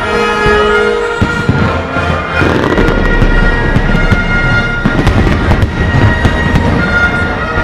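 Fireworks display: aerial shells bursting in a dense run of bangs and rumbling booms, growing heavier after about two and a half seconds, with music playing along.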